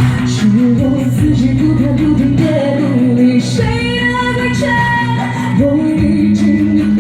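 Music: a song with a voice singing over guitar-led band accompaniment, holding one long note about halfway through.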